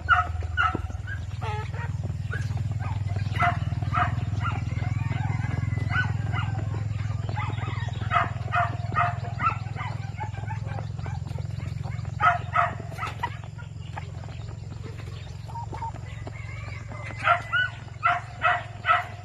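Bouts of short animal calls repeated rapidly, about three or four a second, starting and stopping several times over a steady low hum.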